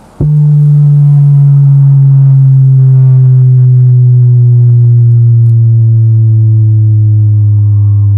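Massive Audio Hippo XL 122 12-inch subwoofer in a ported box playing a bass sine sweep. A loud tone starts suddenly and glides slowly down from about 150 Hz to about 100 Hz, with higher overtones above it.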